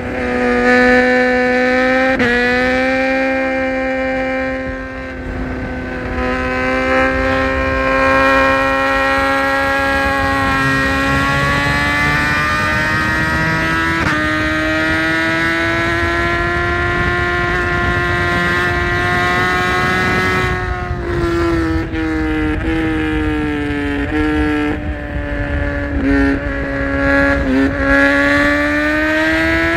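BMW S1000RR inline-four engine pulling hard at high revs, with a gear change about two seconds in and then a long, slowly rising note. In the last third the engine note jumps up and falls back several times, downshifts as the bike slows, over a steady rush of wind.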